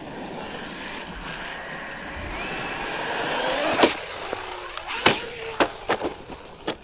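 Traxxas Maxx V2 RC truck driving on gravel: its brushless motor whines and its tyres crunch over the stones, and the whine rises as it speeds up. From about four seconds in come several sharp knocks, with the motor note falling away after the first.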